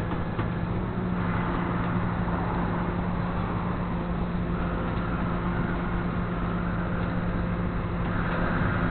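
Flatbed tow truck's engine running at a steady pitch, a continuous drone with no change in speed.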